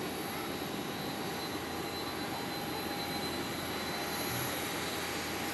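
A Boeing 767-300ER's twin General Electric CF6-80C2 turbofans at taxi idle: a steady rumble with a high whine, holding even throughout.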